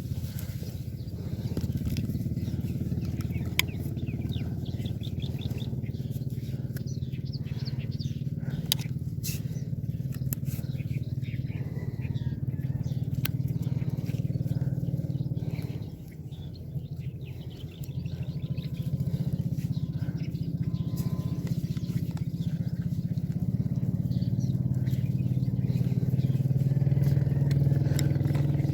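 A small engine running steadily, easing off briefly about halfway through and then building up louder again near the end.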